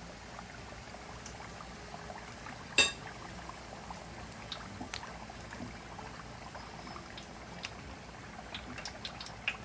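Battered fish fillets deep-frying in the oil of an electric deep fryer, which bubbles steadily with scattered small pops and crackles. There is one sharp click about three seconds in.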